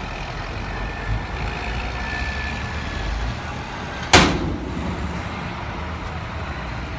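Heavy construction machinery engines running steadily, with one loud, sharp bang about four seconds in.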